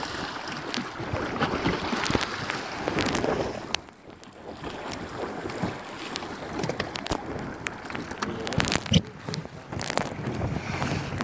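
Wind buffeting the microphone over water rushing and splashing along the hull of a small sailing boat under way, with scattered knocks and clicks; the wind drops briefly about four seconds in.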